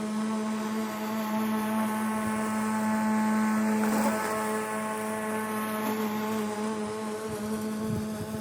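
Motor of a battery-powered lawn tool running at a steady pitch, a constant hum-whine that swells a little around four seconds in.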